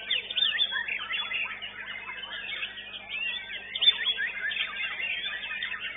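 Dense, overlapping song of caged white-rumped shamas (murai batu): rapid whistled phrases, chirps and trills, several birds at once, over a steady low hum.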